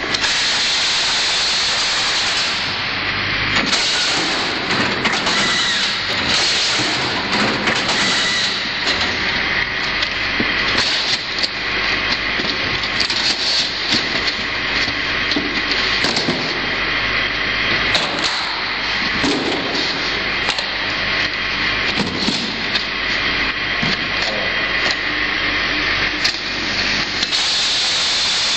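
Automatic carton sealing and strapping machine running: a steady machine noise with frequent clicks and knocks as cartons move along its conveyors.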